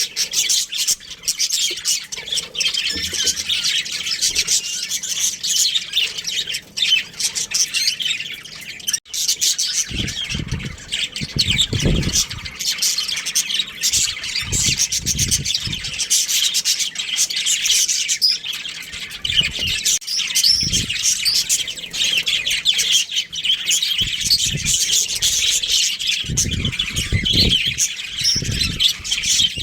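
Budgerigars chattering and chirping continuously in a dense, busy stream of high chirps and squawks. A few short low rumbles come and go partway through and near the end.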